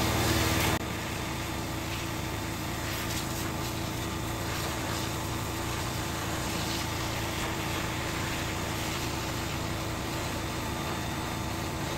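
Electric high-pressure washer running steadily, its motor and pump humming under the hiss of the water jet spraying onto paving stones. The sound drops a little in level about a second in.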